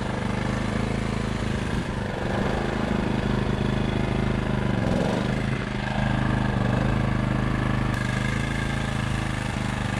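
Small gasoline engine of a portable generator running steadily at an even pitch.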